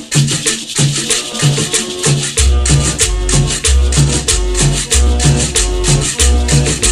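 Cumbia music playing over a sound system, with a steady, quick percussion rhythm and repeating melody notes; a deep bass line comes in about two and a half seconds in.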